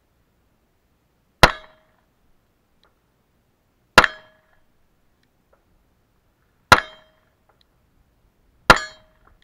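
Glock 43 9mm pistol fitted with a homemade muzzle brake firing four single shots, spaced two to three seconds apart, each dying away within a fraction of a second.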